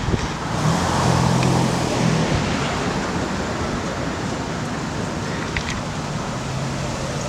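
A motor vehicle passing on the street: engine and tyre noise swells about a second in, then eases into a steady traffic hum.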